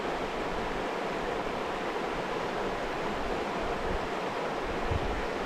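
Running water of a river, a steady even rush with no change in level.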